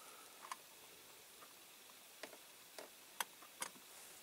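A few faint, light clicks of small metal parts, a diecast toy lorry's baseplate pressed and fitted into its body, scattered irregularly over a quiet background.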